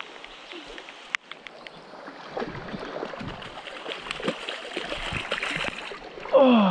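Stream water running, then louder irregular splashing and sloshing from about two seconds in as a big hooked trout thrashes in the shallows beside the angler. A short exclamation comes right at the end.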